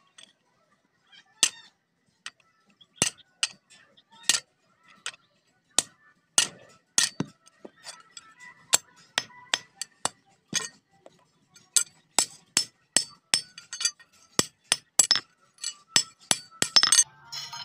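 Irregular sharp metallic taps and clinks of a rusty iron blade being knocked against a steel anvil block, each with a faint ring. They come about once a second at first, then faster and closer together in the last few seconds.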